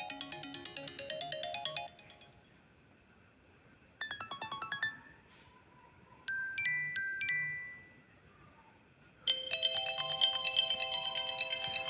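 iPhone ringtones and alert tones played one after another: a bell-like melodic tune that stops about two seconds in, a quick run of notes at about four seconds, a few bright chime notes around six to seven seconds, and another, louder tone starting near the end.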